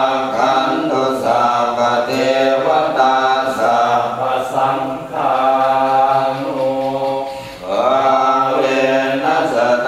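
Buddhist chanting in Pali: long, drawn-out melodic chanted notes that slide from one pitch to the next, with a brief break for breath about seven and a half seconds in.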